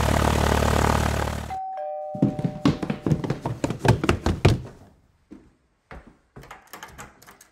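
Two-note doorbell chime, a higher note followed by a lower one, ringing for about a second, right after a loud rushing sound cuts off. It is followed by a quick run of thumps and clicks, then fainter clicks as a door's deadlock is worked.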